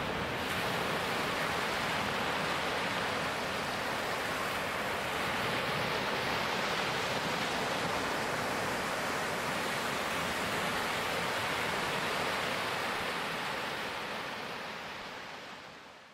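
Ocean surf: small waves breaking and washing up a beach in a steady rush. It fades out near the end.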